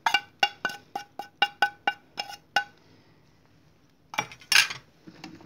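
A small ceramic spice dish tapped in a quick run of about a dozen ringing clinks, roughly five a second, knocking the last of the dry seasoning out onto the liver. A short, louder clatter follows about four seconds in.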